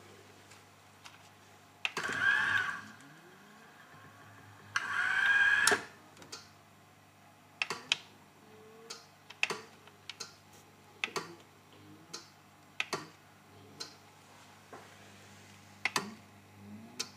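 Grundig BK 3000 VCR's mechanism, in a machine with a bad capacitor: two short whirring motor runs with a whine, about 2 and 5 seconds in, then a string of irregular clicks and clunks over a steady low hum.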